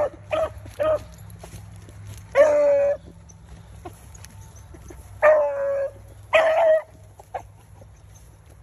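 Beagles baying on a rabbit's track as they work out a check: three quick short barks, then three longer drawn-out bays a few seconds apart, and a last short yelp near the end.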